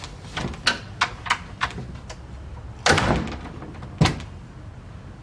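A flat's front door being opened and shut: a run of sharp clicks from its latch and handle, a louder thud near three seconds, then the door knocking shut about four seconds in.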